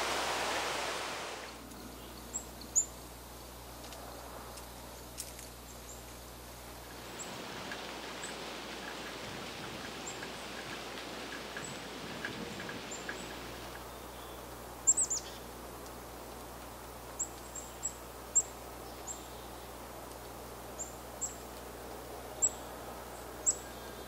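Small songbirds giving short, high, thin chirps, scattered singly and in quick pairs and more frequent in the second half, over a steady outdoor background. A broad rush of noise fades out over the first second or so.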